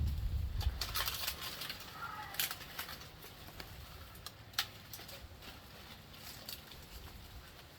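Scattered rustles and sharp clicks of leaves and twigs being disturbed in a vine, over a low wind rumble on the microphone in the first second.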